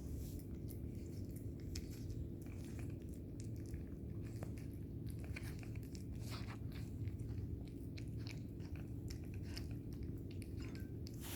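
A cat eating, with many quick, irregular crunches as it bites and chews its food.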